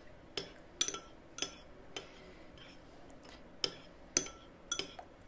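Metal spoon clinking and scraping against a ceramic soup bowl as the soup is stirred and scooped: a string of short, irregularly spaced clinks.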